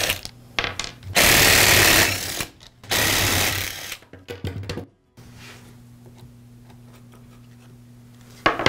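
Makita cordless drill-driver backing out the screws of a string trimmer's trigger-handle side cover, running in two bursts of about a second each with short clicks between. About five seconds in it stops, leaving a faint low hum.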